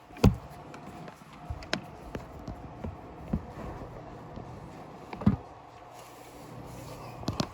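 A few separate sharp knocks and bumps, about one every second or two, the loudest near the start, over a faint steady hum.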